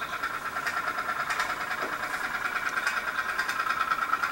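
Candle-heated tin pop-pop toy steam boat running under steam, its boiler giving a rapid, even putt-putt pulsing.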